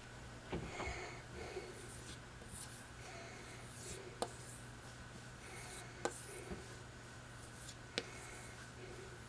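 Faint strokes of a Buck 389 Canoe pocketknife blade being drawn along a strop, about one a second, with three sharp clicks in the second half.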